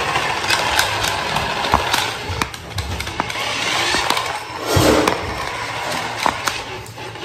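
Remote-control toy car's small electric motor whirring as its wheels roll over a tiled floor, with scattered clicks and a louder surge about five seconds in.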